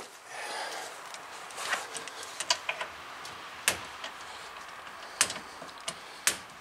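Torque wrench tightening brake caliper bracket bolts to 42 ft-lb, giving several sharp clicks, the three loudest in the second half about a second apart, over light handling and rustling.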